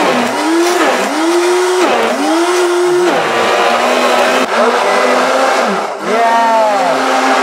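Countertop blender motor running on a jar of orange vegetable mixture, its pitch repeatedly sagging and recovering about once a second as the blades churn the thick contents.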